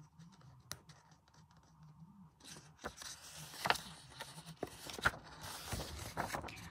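A page of a large paperback colouring book being lifted and turned by hand: faint paper rustling at first, then from about halfway a louder scraping rustle with a few sharp crackles as the sheet bends over.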